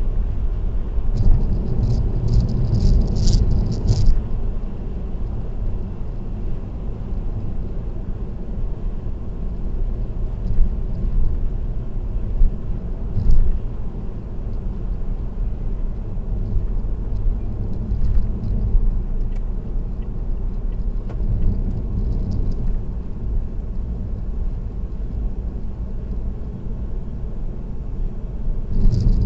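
Steady low road and tyre rumble of a car cruising at expressway speed, heard from inside the car. Short bouts of light high-pitched rattling come and go, near the start, about halfway through and again a little later.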